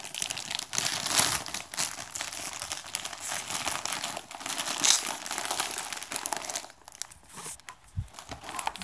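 Crinkly rustling of jacket fabric being pulled on and handled close to the microphone, irregular and continuous, easing off briefly near the end.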